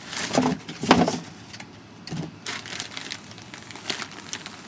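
Plastic packing bag and wrapping crinkling and rustling as a boxed oscilloscope is lifted out and handled, irregularly throughout. The loudest bursts come in the first second or so.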